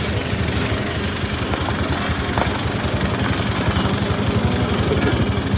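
Heavy vehicle's diesel engine running steadily, with a fast, even low pulse.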